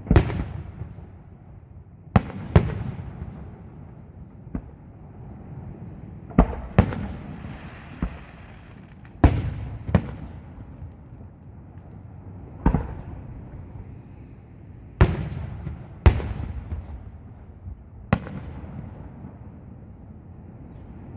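Aerial fireworks shells bursting, about a dozen sharp booms at irregular intervals, each trailing off in a rolling echo.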